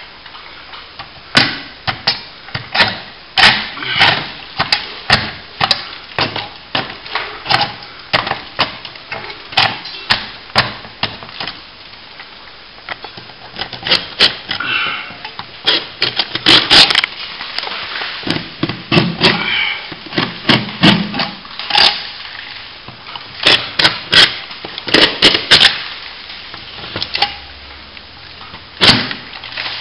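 Metal scraper scraping and chipping flaking paint and loose plaster out of the crack between the ceiling and the plaster cornice, in short irregular strokes, several a second at times. This opens up the crack so it can be filled with corner cement.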